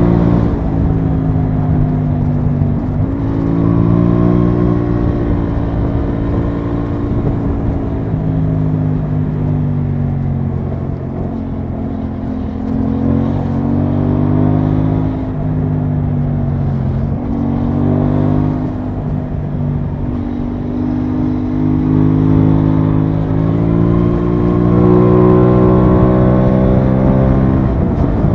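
Aprilia Tuono 660's parallel-twin engine running under way, heard from on the bike. Its note rises under acceleration and drops sharply several times, with a long climb near the end before it falls away.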